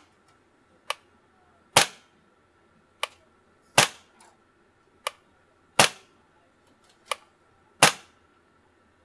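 Umarex Beretta PMX gas blowback airsoft submachine gun (made by KWA) firing single shots on green gas: four sharp cracks of the gas blowback action about two seconds apart, with a fainter click between each shot.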